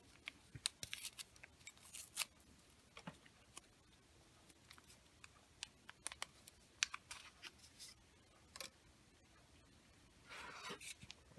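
Faint crinkling and small clicks of a foil wet-wipe sachet being torn open and the wipe pulled out and unfolded, with a brief rubbing sound near the end.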